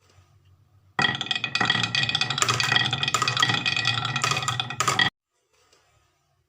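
Marbles rolling and clattering down a wooden marble run for about four seconds, a dense rattle of clicks that cuts off suddenly.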